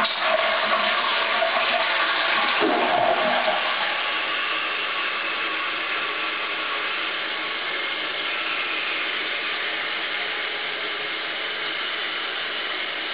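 Toilet flushing 6 litres through a Super Controlled Flush Valve: a loud rush of water with a gurgling swirl in the first three seconds or so, then a steady rush of water that slowly eases.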